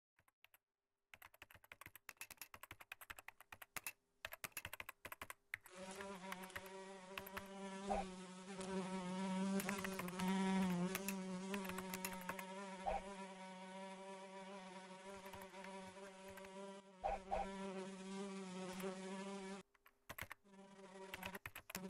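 Computer keyboard typing in quick irregular clicks. From about six seconds in, an insect's buzz with a wavering pitch runs on over the typing and stops briefly near the end.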